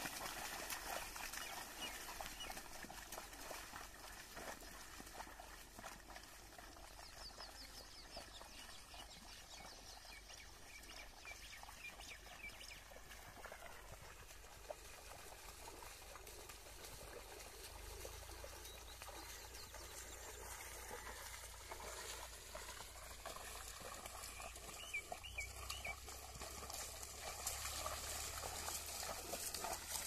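A pair of bullocks and a wooden plough wading through a flooded paddy, with the wet mud and water sloshing and splashing. It is faint in the middle and louder near the start and end.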